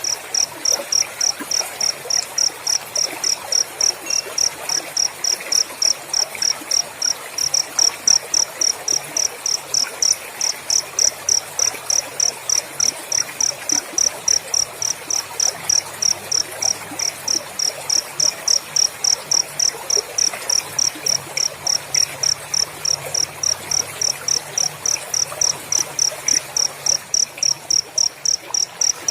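Cricket chirping in a steady, even rhythm of about three or four high-pitched chirps a second, over a faint hiss.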